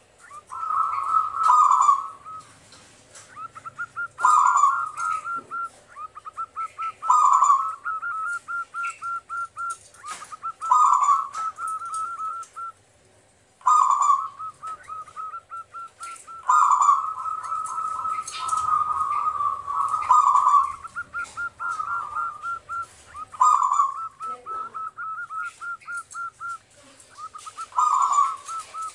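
Zebra dove singing its cooing song, a phrase about every three seconds: each opens with a louder note and runs on in a fast string of short, clipped coos.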